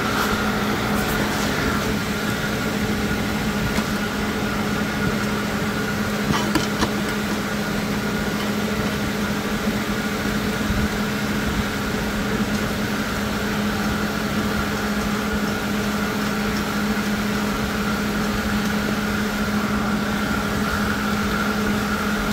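Steady machine hum: a constant low drone with a steady higher whine over it. A couple of brief clicks come about six and a half seconds in.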